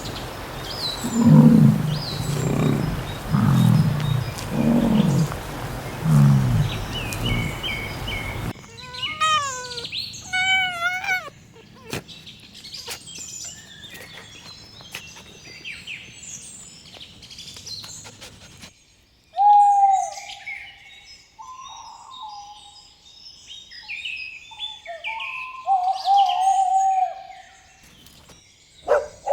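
A run of different animal calls with no speech. First comes a series of about five low, pulsing calls roughly a second apart. About eight seconds in the sound changes abruptly to high calls that slide up and down in pitch, bird-like. From about nineteen seconds there is a different set of whistled notes and chirps.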